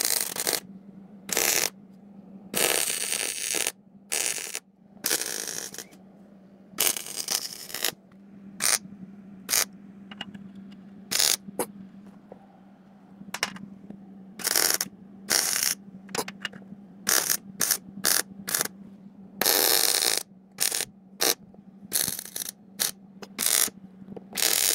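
Wire-feed welder laying short tack welds on steel tabs. It gives a series of crackling, sizzling arc bursts, each from a fraction of a second to about a second long, with short pauses between them and a steady low hum underneath.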